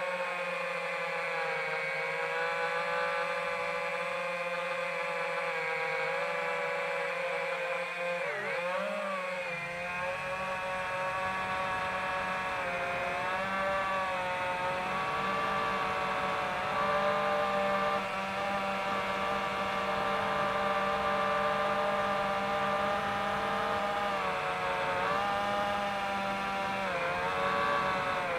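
FPV quadcopter's electric motors whining steadily. The pitch dips and recovers with throttle several times, most sharply about eight seconds in.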